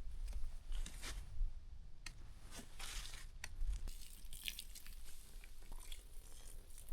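Scattered, irregular soft crunches and rustles over a steady low rumble.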